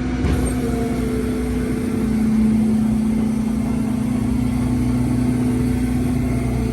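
Rollback tow truck's engine running and driving the bed hydraulics as the bed is tilted, a steady drone that swells slightly about two seconds in.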